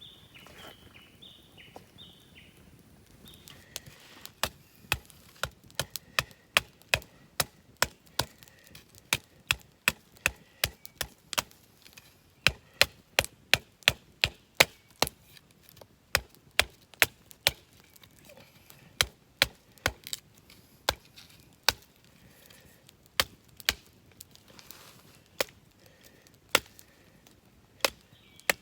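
Wood being chopped, with sharp strikes coming about two a second and a few short pauses.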